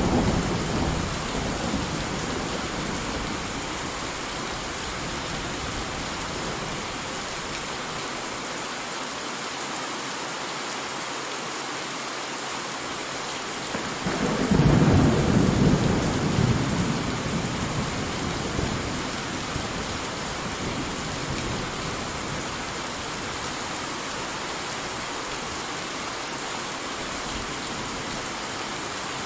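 Steady rain with thunder rolling twice: a rumble fading away just after the start, and a louder rumble about halfway through that dies away over several seconds.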